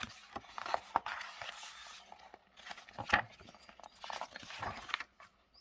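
Paper of a picture book being handled and a page turned: rustling with scattered small clicks and knocks, dying away near the end.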